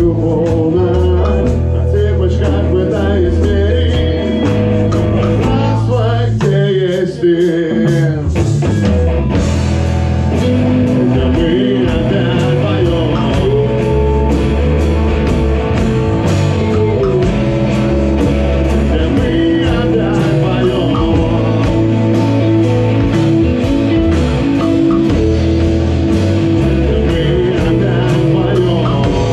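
Live rock band playing: electric guitars and drum kit with singing. The low end drops out briefly about seven seconds in, then the full band comes back in.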